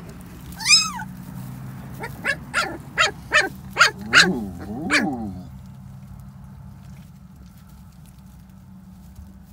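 Young puppies yelping and whining: one high squeal about a second in, a quick run of six short yips, then two lower drawn-out whines around four and five seconds.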